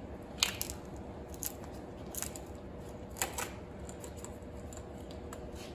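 A handful of light, sharp clicks and taps from small tools or parts being handled, the sharpest about half a second in and another about three seconds in, over a steady low hum.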